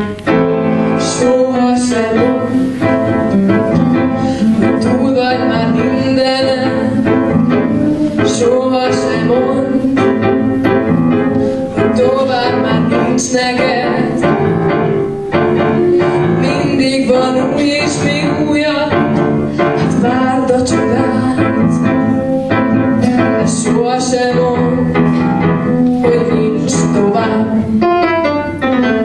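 A young woman singing a song into a microphone, accompanied on the piano.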